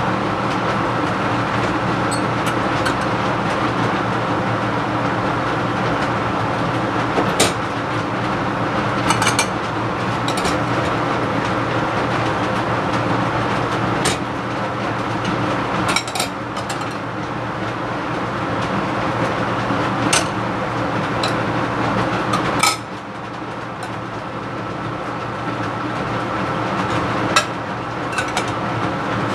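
Laminar flow hood's blower fan running with a steady hum and rush of air. Light sharp clicks of plastic petri dishes and lids being handled come every few seconds. The fan noise drops a little about three-quarters of the way through, then builds back slowly.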